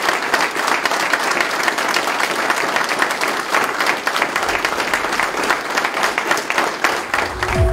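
A room full of soldiers applauding together, a steady dense clatter of many hands clapping.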